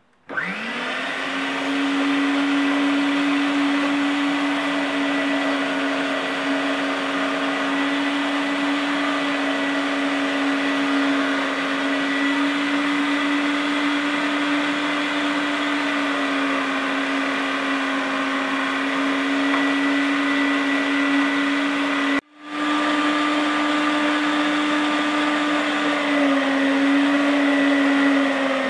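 Electric meat grinder's motor starting up and running with a steady hum as it grinds gooseberries, garlic and hot peppers. The sound cuts out abruptly for a moment about three-quarters of the way through, then resumes, its pitch dipping slightly near the end.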